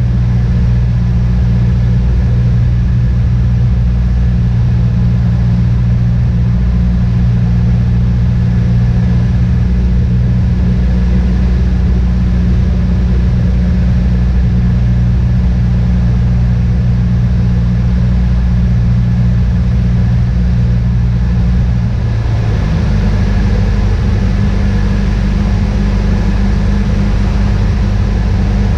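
Beechcraft Musketeer's piston engine and propeller droning steadily, heard inside the cabin in flight. About 22 seconds in, the engine note shifts to a new steady pitch.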